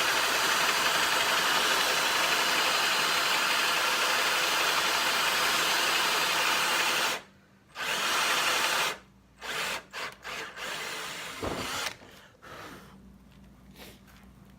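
Power drill boring a hinge cup hole into a wooden cabinet door with a hinge mortise bit, running steadily for about seven seconds. It stops, runs again for about a second, gives a few short bursts, and then goes quiet near the end.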